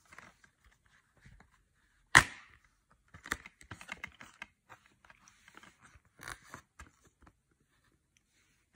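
Plastic Blu-ray case being handled and opened. A single sharp snap comes about two seconds in, then scattered light clicks and rubbing of plastic and cardboard.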